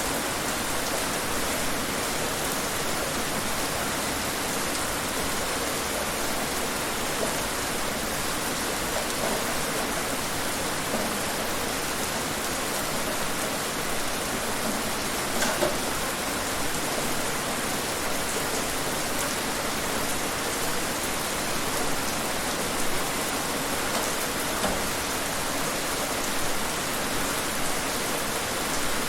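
Steady rain falling and pattering on outdoor surfaces, with scattered louder individual drops.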